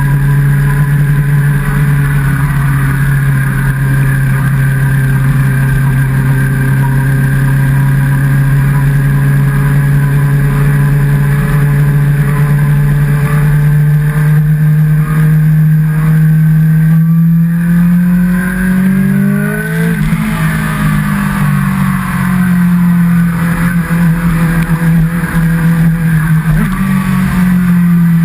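Sport motorcycle's inline-four engine running at steady cruising revs. About two-thirds of the way in the revs rise and ease off, then drop away near the end.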